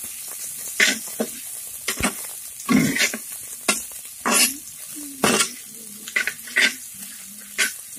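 Sliced onions sizzling in hot coconut oil in a clay pot, stirred with a steel slotted spoon. The spoon scrapes and knocks against the pot about ten times at irregular intervals over a steady frying hiss.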